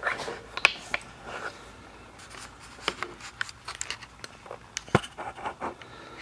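Scattered, irregular light clicks and taps from someone moving about while handling a handheld camera, over a quiet room background.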